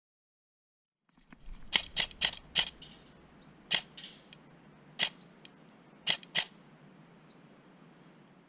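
Airsoft BB guns firing: eight sharp snaps over a faint steady hiss. After about a second of silence comes a quick run of four shots, then single shots and a closing pair spread over the next few seconds.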